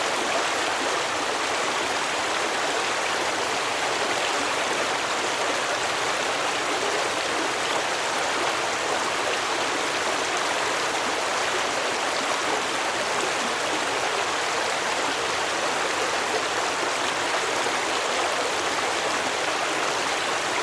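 Stream water flowing over rocks: a steady, unbroken rushing and babbling.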